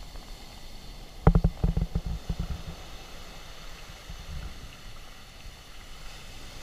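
Surf from hurricane-driven swell breaking and washing up the beach as a steady rush, with a cluster of low thumps about a second in.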